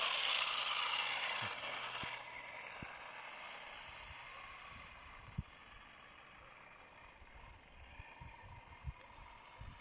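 Kyosho Dirt Hog RC buggy driving across an ice rink: the hiss of its motor and tyres on the ice is loud at first, then fades as the car pulls away. A few faint low thumps come later on.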